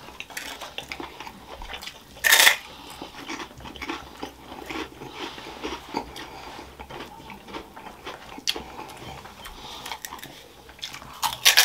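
Close-up eating sounds: chewing and crunching of food, with a louder crunch about two seconds in.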